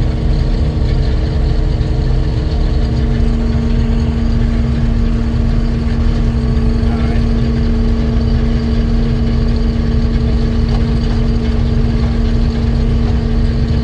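Heavy farm machinery engine running steadily at a constant speed, a deep rumble with a steady hum over it.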